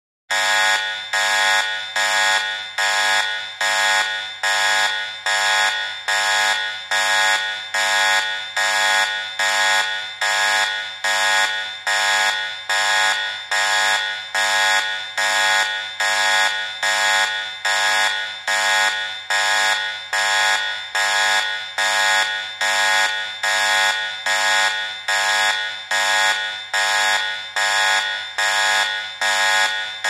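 Electronic buzzing alarm: a harsh buzz pulsing on and off a little more than once a second in a steady, unbroken rhythm.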